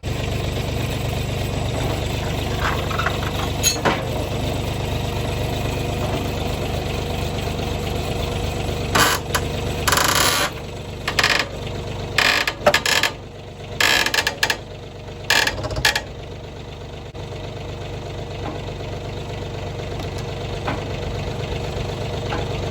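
An engine idling steadily, with a run of short, loud bursts of noise in the middle stretch.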